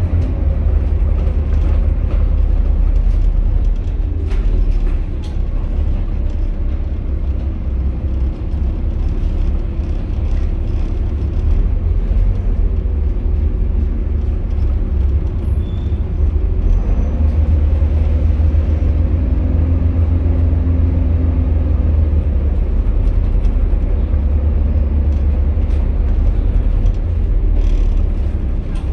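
Interior sound of a Volvo B7TL double-decker bus on the move: its Volvo D7C six-cylinder diesel and drivetrain running in a deep, steady drone. There are a few brief clicks and rattles from the body.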